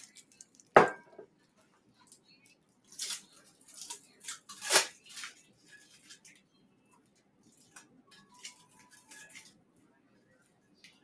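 Sublimation tumblers being handled and set down on a worktable: a few separate sharp knocks and clinks, the loudest about a second in, with quieter scrapes and rattles between.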